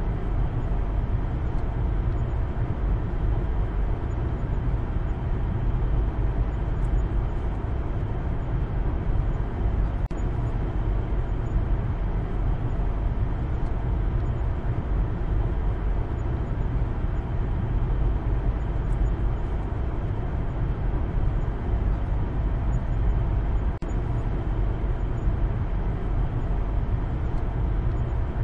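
Steady low rumble of road and engine noise inside the cabin of a moving Maruti Suzuki Baleno, dipping briefly once about 24 seconds in.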